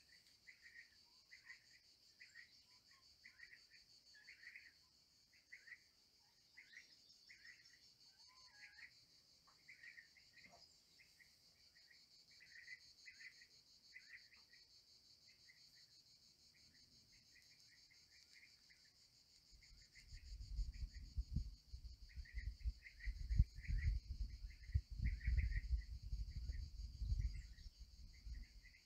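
Faint insect chorus: a steady high-pitched trilling drone with short chirps repeating about twice a second. From about two-thirds of the way through, irregular low rumbling bursts come in, like wind buffeting the microphone.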